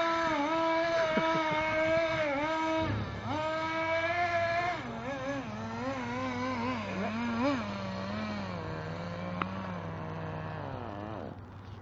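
HPI nitro RC car's small glow-fuel engine running at high revs with short dips in speed. About five seconds in it drops to a lower, wavering speed, sinks further and cuts off about a second before the end.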